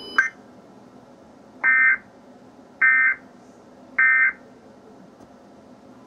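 Emergency Alert System end-of-message signal: three short, identical buzzing bursts of SAME digital data tones, about a second apart, marking the end of the tornado warning broadcast. It plays from a television, with a short blip at the very start.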